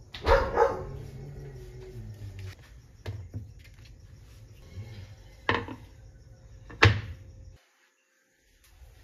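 A dog barking: a quick double bark at the start, then single barks about every two seconds, with a low steady hum underneath.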